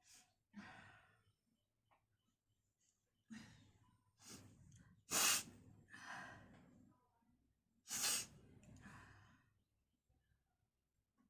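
A woman sneezing twice, about three seconds apart. Each sneeze is a sharp, explosive burst followed by a breathy exhale, and the first is preceded by short gasping inhalations. The sneezes are brought on by tickling the nose with paper.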